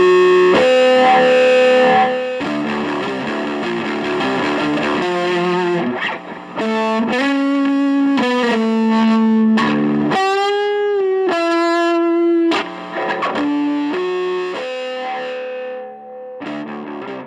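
Distorted electric guitar, a Reverend Jetstream 390 through a home-built Aionfx GC-1 drive pedal into a tube amp, playing sustained single-note lead lines with bends and vibrato over a looped rhythm part. It drops off briefly about six seconds in and again near the end.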